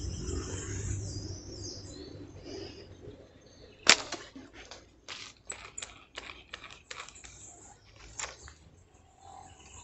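A single sharp snap of a slingshot being fired, about four seconds in, then irregular crunching footsteps and rustling through dry leaves and brush. Birds chirp faintly at the start.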